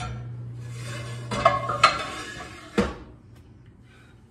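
Metal pans clanking against each other and the gas stove's grates as they are moved, a cluster of clatters around a second and a half in and one sharper knock a little before three seconds.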